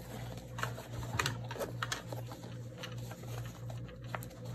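Nylon MOLLE straps being pulled and woven through the webbing of a padded gun case: scattered scratchy rustles and light clicks, over a steady low hum.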